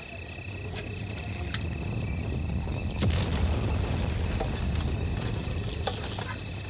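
Insects trilling steadily, a high even tone under a faster pulsing one, while a deep low rumble swells in and is loudest about three seconds in, where there is a sharp crack.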